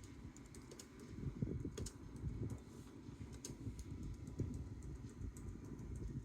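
Typing on a Bluetooth computer keyboard: a steady, uneven run of soft key presses with occasional sharper clicks.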